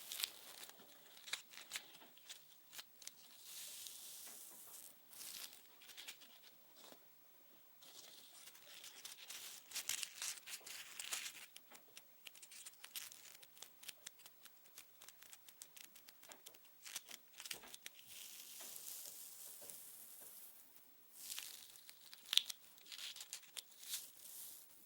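Close-miked ASMR trigger sounds: soft crinkly, scratchy rustling with many small quick clicks and taps, coming in waves with short pauses.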